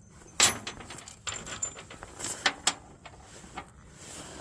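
Clicks and knocks from tools and heavy battery cable being handled, a sharp knock about half a second in and a quick cluster of clicks a little past the middle.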